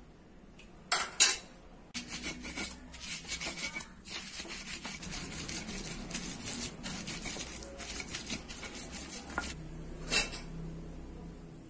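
Round stone pestle crushing and grinding red chilies on a flat stone grinding slab, a rhythmic gritty scraping of stone on stone that starts after two sharp knocks about a second in. Another sharp knock of stone comes near the end.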